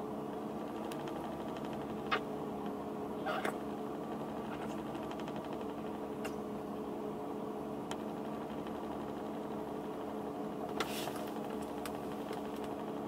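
Steady mechanical hum inside a car cabin, with a few short, soft kissing smacks scattered through it.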